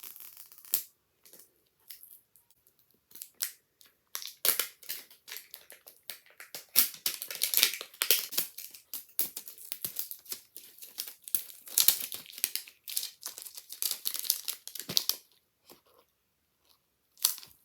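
Toy packaging being torn open and crinkled by hand: a few scattered rustles at first, then about eleven seconds of dense, irregular crackling and tearing that stops about two seconds before the end.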